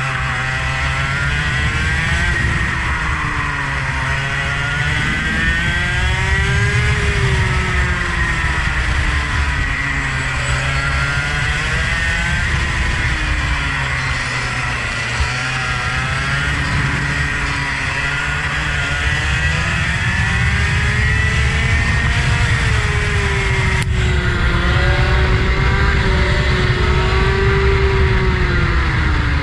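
Engine of a vehicle lapping a track, its pitch rising and falling over and over as it accelerates out of corners and slows into them, over a steady low rush of road and wind noise.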